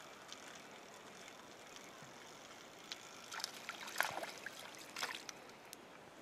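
A small hooked perch splashing at the lake surface as it is reeled in on a bobber rig: a few quiet splashes starting about three seconds in, the strongest about four and five seconds in.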